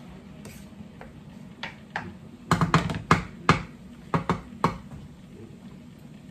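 Wooden spatula knocking and clacking against a wok while stirring meat, a quick run of sharp knocks bunched in the middle, over a steady low hum.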